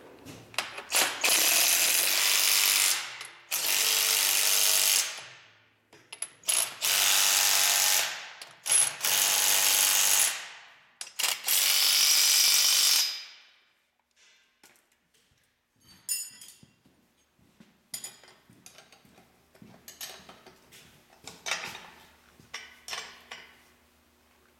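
Cordless impact wrench run in five bursts of about two seconds each, each dying away at the end, as it snugs up the bracket's mounting bolts. In the second half come faint, scattered clicks of a hand ratchet wrench tightening the bolts further.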